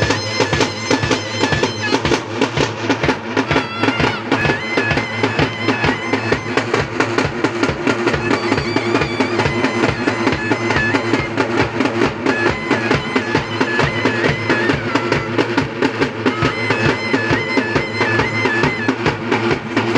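Festival band music: a shrill reed pipe plays a wavering, ornamented melody over a steady drone, with fast, dense drumming keeping an even beat.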